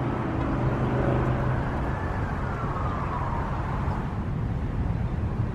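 Steady rumble of distant road traffic, with a faint falling whine about two seconds in.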